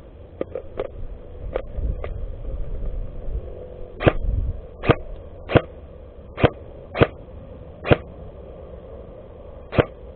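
Airsoft gun fired in single shots: about seven sharp cracks, unevenly spaced, starting about four seconds in. A few fainter clicks come in the first two seconds.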